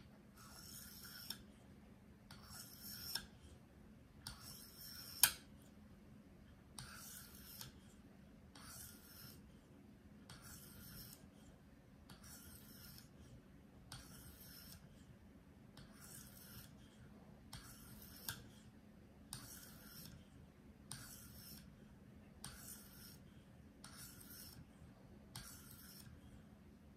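A 4-inch Henckels paring knife's edge stroked across an oiled 1500-grit stone on a KME guided sharpener. The faint, even scraping strokes come about one a second, working the edge to raise a burr.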